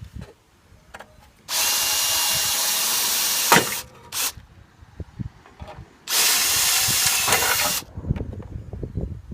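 Power drill running in two bursts of about two seconds each, drilling through the pop-rivet holes in metal, with small knocks between the bursts.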